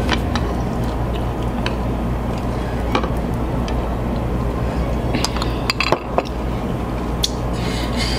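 Cutlery clinking and tapping against bowls and dishes during eating, in scattered light clicks with a small cluster about five to six seconds in, over a steady low hum.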